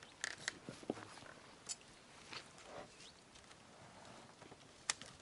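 Faint, scattered clicks and soft knocks with small splashes of water as a fish is handled in the shallows beside a boat.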